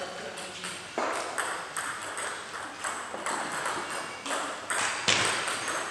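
Table tennis balls clicking off bats and tables from several matches being played at once, in an irregular patter of sharp pocks, with one louder hit about five seconds in.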